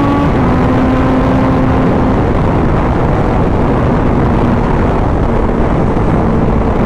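Motorcycle cruising at expressway speed, heard from the rider's position: a steady rush of wind over the microphone with the engine's hum underneath, the engine tone growing fainter after about two seconds.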